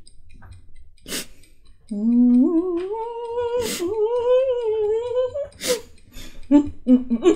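A person hums a long, wavering note through lips closed around a spicy lollipop, starting about two seconds in and rising in pitch before stopping. It is cut by sharp hissing breaths, a reaction to the candy's burn, and short hummed grunts follow near the end.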